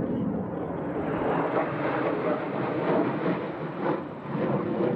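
F-16 fighter jet flying overhead: steady rushing jet engine noise that swells and dips a little, easing briefly near the end.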